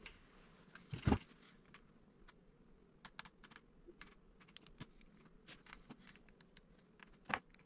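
Faint, irregular ticking and crackling from polypropylene welding rod being melted and pressed onto a plastic gas tank with a plastic welder, with two louder knocks, one about a second in and one near the end.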